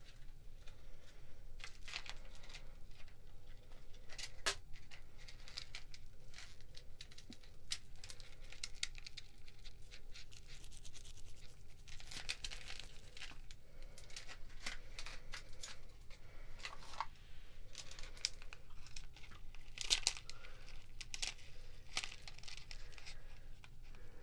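Close-up crinkling and tearing of jewellery packaging as a necklace is unwrapped and taken out, in many short, irregular rustles.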